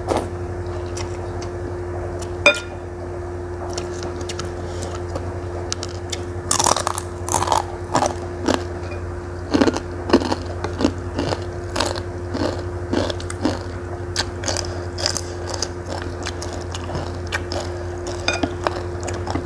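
Close-up mukbang eating sounds: noodles from a bowl of bakso slurped and chewed, with many short wet mouth clicks and smacks that grow busy from about six seconds in. A steady low hum runs underneath.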